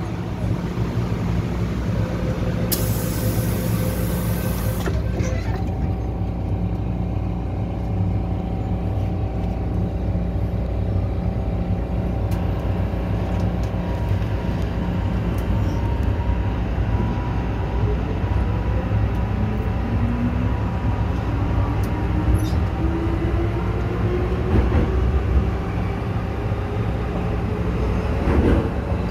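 MTR M-Train electric multiple unit pulling away and accelerating, heard from inside the car over a steady rumble. A short hiss of air comes near the start, then a set of steady electrical tones sets in, and from about halfway a motor whine rises steadily in pitch as the train gathers speed.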